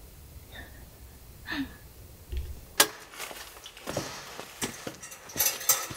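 A sharp click, then light metallic clinks, knocks and rattling as a round wire-caged portable heater is lifted and carried by its wire bail handle.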